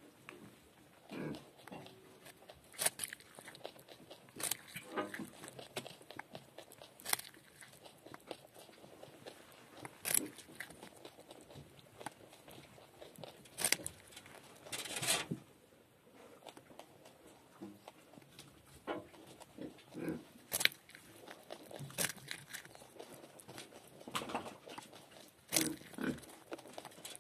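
Nutria gnawing a raw carrot close up: sharp crunches every second or two as its incisors bite off pieces, with quieter chewing in between.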